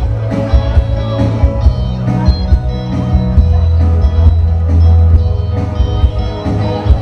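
Electronic keyboards playing a rock song with a steady drum beat and a strong bass line underneath held chords.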